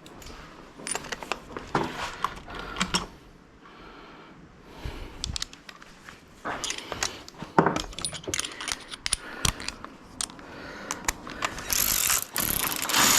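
Hand tools working on the headlight fixings: a socket ratchet clicking and metal tools clinking in irregular bursts, with a louder run of rapid clicking near the end.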